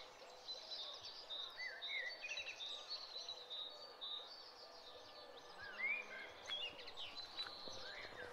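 Many small birds chirping and calling at once: a dense chorus of short chirps and rising whistles, faint against a light background hiss.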